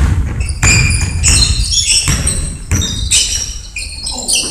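Basketball sneakers squeaking on a hardwood gym floor, many short high squeaks in quick succession, mixed with a few thuds of a basketball bouncing, in a large echoing gymnasium.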